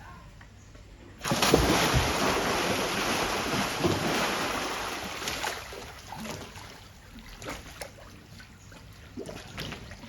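Saltwater crocodile splashing in the water at feeding time: a sudden heavy splash about a second in, then several seconds of churning water that dies away into drips and small splashes.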